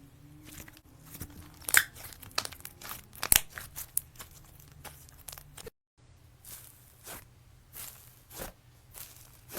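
Slime being squeezed and worked by hand, giving a run of sharp crackles, pops and crunches. It breaks off for a moment just after halfway, then goes on with softer, more evenly spaced crunches.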